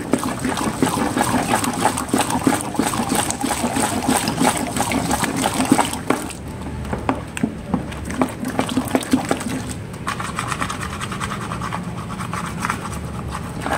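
A stick stirring thick carbopol gel by hand in a plastic bucket: quick, irregular sloshing and scraping against the bucket wall. It goes quieter about six seconds in.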